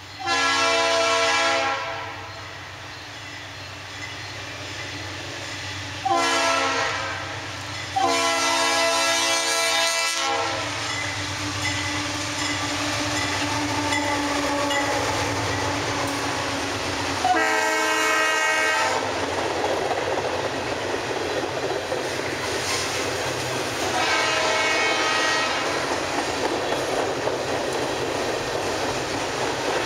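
Norfolk Southern freight locomotive's multi-chime air horn sounding five blasts for a grade crossing, the longest about 8 seconds in. Between the blasts and after them, the passing train rumbles and its wheels clatter over the rail joints as the locomotives and then the freight cars go by.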